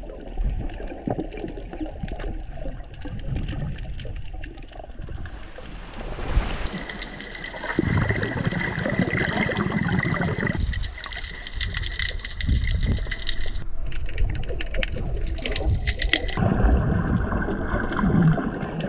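Muffled underwater sound picked up by a GoPro under the sea: low water rushing and bubbling that changes abruptly several times. A steady high tone runs through the middle and comes back near the end.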